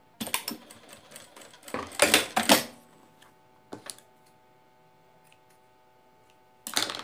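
Sewing machine running in two short bursts, sewing a few securing stitches, then a few single clicks and fabric handling. A faint steady hum lies under it, and a short dense rustle or snip comes near the end.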